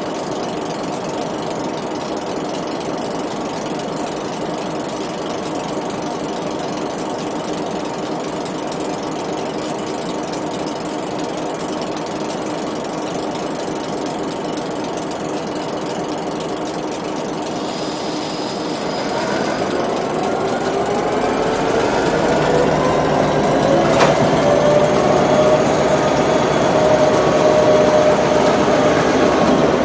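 Diesel-electric locomotives running steadily; about two-thirds through the sound grows louder, with a rising drawn-out tone, as the locomotives pull the cut of freight cars into motion. A single sharp click comes near the end.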